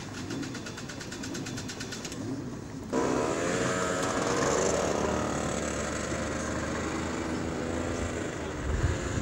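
Motorcycle engine running close by: a fast, even ticking at first, then about three seconds in a louder engine note starts suddenly, rises in pitch and holds steady.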